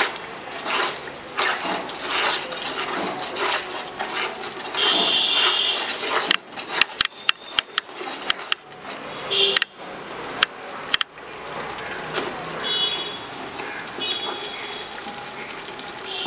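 Steel spoon stirring a thick masala of tomato, onion and yogurt in a large aluminium pot, scraping and sloshing. About six seconds in comes a run of sharp metallic clicks lasting several seconds, and short high-pitched tones sound a few times.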